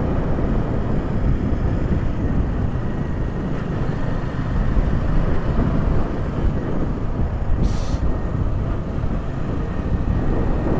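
Motorbike riding along a road: a steady low rumble of engine, road and wind noise, with a short hiss about eight seconds in.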